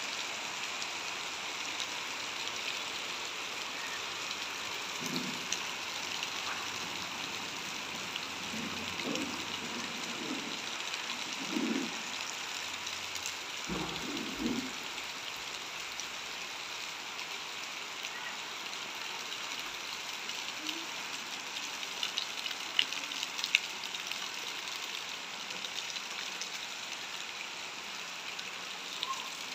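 Steady rain falling, a continuous even hiss, with a few sharp ticks of drops about two-thirds of the way through.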